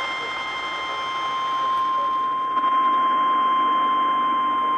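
NOAA Weather Radio 1050 Hz warning alarm tone: one steady high tone over a hiss of radio static, getting louder a little before halfway through. It signals that a warning message is about to be broadcast.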